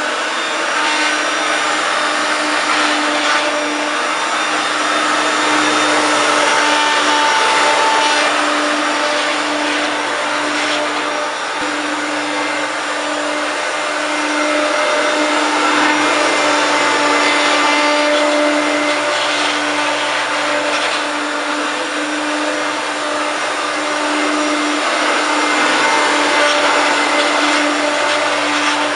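1993 Hoover Turbopower 1 U2798 vacuum cleaner running continuously, a steady motor whine with a strong low hum and airflow hiss, its loudness swelling and easing a few times.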